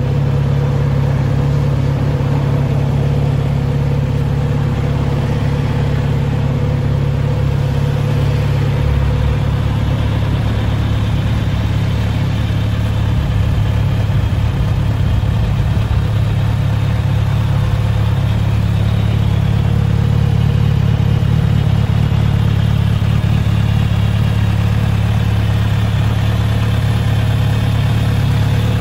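A 2022 Kawasaki Z900RS's inline four-cylinder engine idling steadily in neutral, its note settling a little lower about ten seconds in.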